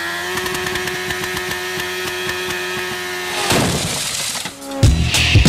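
Intro sound effects: a steady, buzzing pitched drone with a fast rattle for about three and a half seconds, then a crashing whoosh. Music with a heavy beat comes in near the end.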